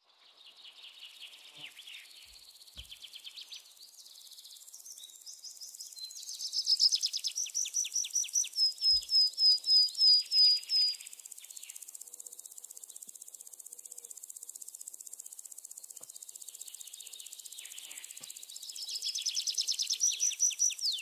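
Birds calling in rapid series of short, high-pitched notes over a steady high insect hum. The calls are loudest in the middle and start up again near the end.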